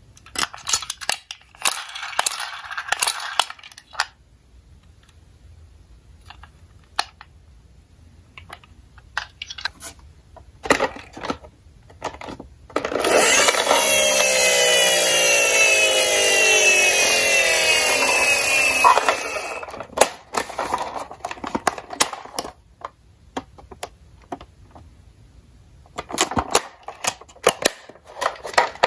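Toy ambulances handled over a cardboard box, with clicks, taps and plastic rustling. For about six seconds in the middle comes a loud whirring that slides down in pitch, the friction motor of the plastic toy ambulance spinning down after its wheels are run.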